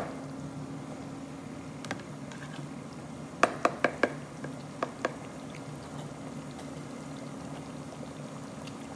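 Black slotted spatula stirring thick simmering curry in a ceramic-lined pot, knocking against the pot: a single knock about two seconds in, a run of four quick knocks around three and a half seconds in, and two more near five seconds, over a steady low hum.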